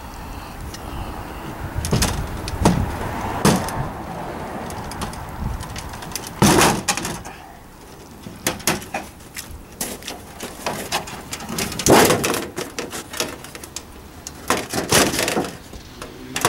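Metal siding being pulled off the rear of a travel trailer: thin sheet metal bending and crinkling, with irregular sharp snaps and clatters. The loudest bursts come about six and a half, twelve and fifteen seconds in.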